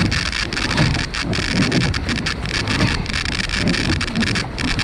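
Water rushing and splashing along the hull of a rowed surf boat under hard strokes, with oar splashes and knocks, and wind buffeting the microphone.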